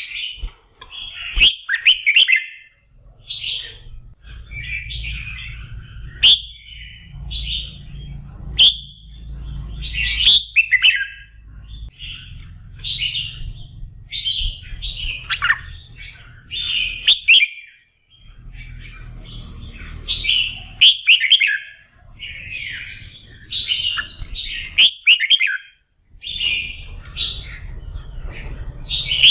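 Red-whiskered bulbul singing loud, short warbling phrases one after another with hardly a pause: the vigorous 'fire-up' song used to rouse other bulbuls to sing in competition. Sharp clicks come now and then, and a low hum runs in stretches.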